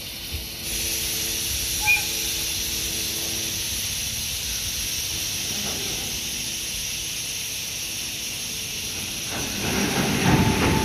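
HD300 hybrid shunting locomotive moving Hoki 1000 coal hopper wagons: a steady hiss with a low hum, then near the end a cluster of metallic clanks from the wagons' couplers, with a brief squeal.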